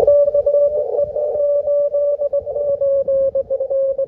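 Morse code (CW) on the 20 m band from a Yaesu HF/VHF/UHF transceiver: one steady-pitched tone keyed rapidly on and off. Hiss sits in a narrow band around the tone and fills the gaps between the dots and dashes.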